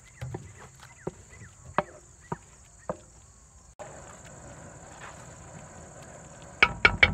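A wooden spatula stirring and scraping a thick, damp masala paste around a metal kadai, with scattered clicks and scrapes. Near the end it knocks sharply against the pan three times in quick succession.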